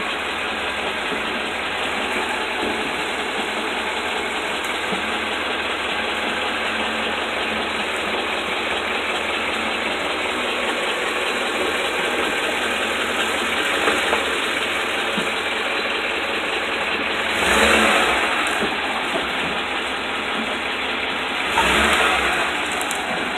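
2008 Ford F-150 4WD pickup running, with a steady mechanical noise. Two brief louder surges come about 17 and 21 seconds in.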